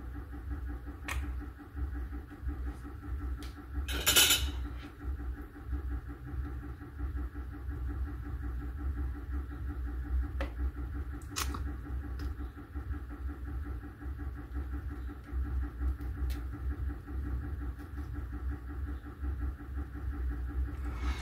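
Steady low hum with a few small clicks and taps of hand tools on a soldering job: tweezers, pliers and a soldering iron working a cable connector. The sharpest click comes about four seconds in, and a couple more fall near the middle.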